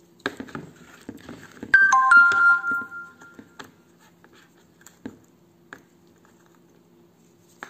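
Short electronic chime: a few quick stepped beeps settle into a held tone lasting about a second and a half. It comes just after a run of small clicks and rattles from a glitter jar being handled.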